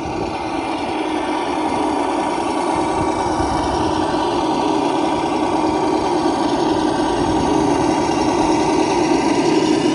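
Small electric motor and geared drivetrain of a Traxxas TRX-6 RC crawler truck running steadily with a continuous whir, slowly growing louder.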